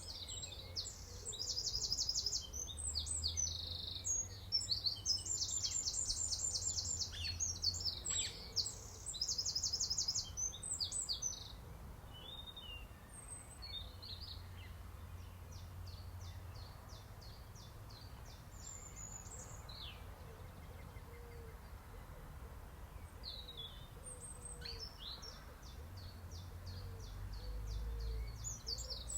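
Small songbirds singing: a loud, rapid, high trilled song repeated several times in the first ten seconds or so, then quieter scattered chirps and short runs of ticking calls. A low rumble runs underneath.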